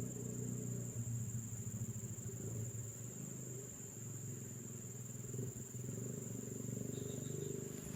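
Insects droning in one steady high-pitched tone, over a low, uneven rumble.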